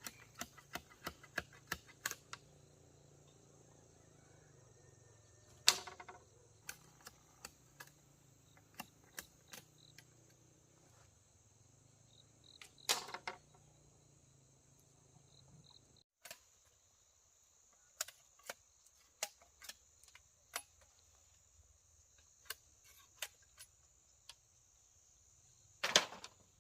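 Irregular sharp taps and knocks, roughly one or two a second, with three louder knocks spread through, over a steady faint high hiss.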